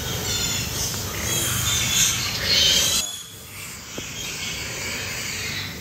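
Piglets squealing while nursing at the sow, in high-pitched calls that are loudest about two to three seconds in and stop abruptly at about three seconds. A steady low hum runs underneath.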